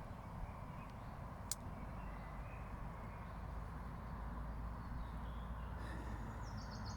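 Faint wild birds calling over a steady low rumble, with a single sharp click about a second and a half in. Near the end a small songbird starts a quick series of high notes that step down in pitch.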